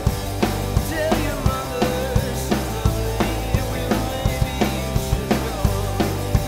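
Rock band playing a song: a drum kit keeps a steady beat of kick and snare hits under bass notes and guitar, with a man singing lead.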